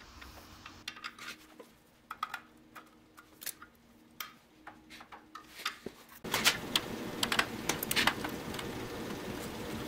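Scattered light metallic clicks and taps of hand-fitted steel parts, a tie-rod strut and its clevis fitting, over a faint steady hum. About six seconds in, a louder steady hiss-like background comes in, with more sharp clicks over it.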